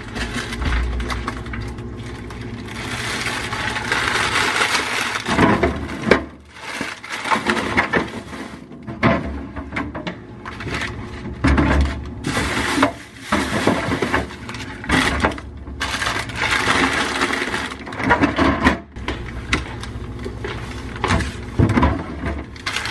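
Groceries being unpacked and put away in a kitchen: bags rustling and items set down with irregular knocks and clatter.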